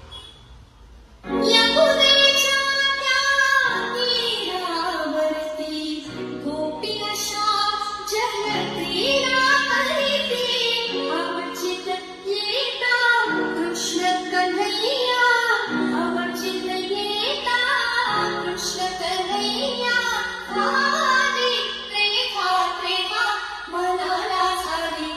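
Music with a girl's or woman's singing voice over low bass notes, starting suddenly about a second in after a quiet opening.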